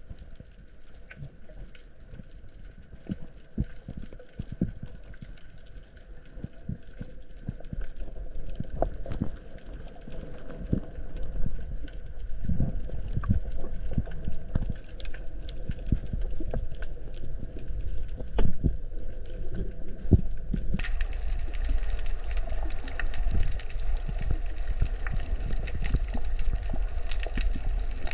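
Water heard underwater: a low muffled rumble with scattered clicks and thumps, growing louder. About twenty seconds in it changes abruptly to a brighter, steadier rushing hiss.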